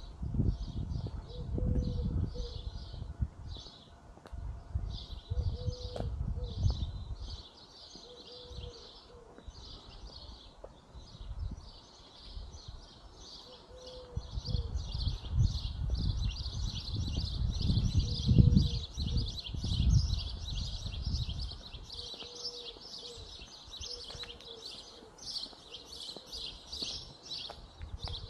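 Birds chirping steadily, with short high chirps that grow denser about halfway through, and a short low call repeating every couple of seconds. A low rumbling noise on the microphone comes and goes, strongest near the start and in the middle.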